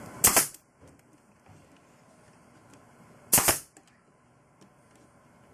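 Pneumatic brad nailer firing twice, about three seconds apart, driving brads into a plywood jig.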